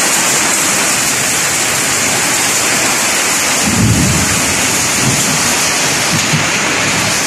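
Heavy downpour of rain and hail falling in a loud, steady hiss. A brief low rumble comes about four seconds in.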